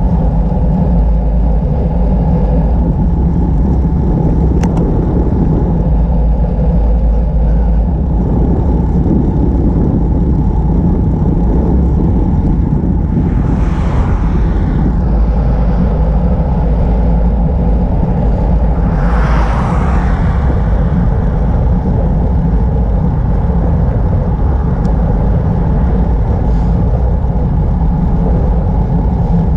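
Steady wind and road noise buffeting a bicycle-mounted camera while riding, with two vehicles swelling past, about halfway through and again about two-thirds in.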